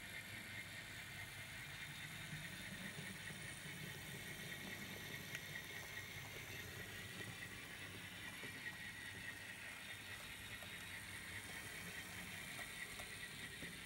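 Faint, steady whir of a model diesel switcher locomotive's motor and gearing as it runs along the track. It is a DCC engine without a sound decoder, so only the mechanism is heard, not engine sounds.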